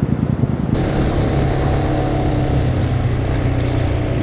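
A motorcycle engine idling with even, lumpy low beats, cut off suddenly about three-quarters of a second in by a motorcycle cruising at a steady speed, its engine note held steady under a hiss of wind on the helmet camera.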